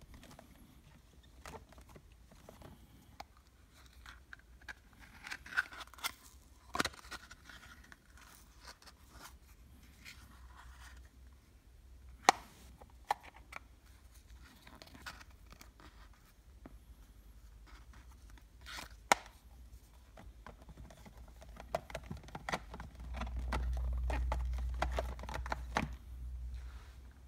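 Paperboard eyelash boxes being picked up and handled on a shelf: light scraping and rustling with scattered sharp clicks and taps, the loudest about 12 seconds in and again about 19 seconds in, and a low rumble near the end.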